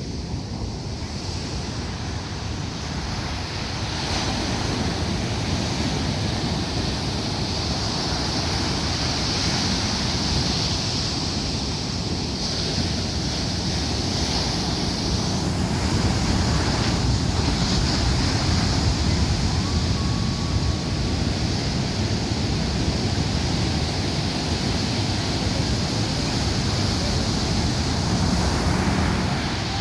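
Ocean surf: waves breaking and rushing, with wind blowing on the microphone. The noise is steady and grows a little louder about four seconds in.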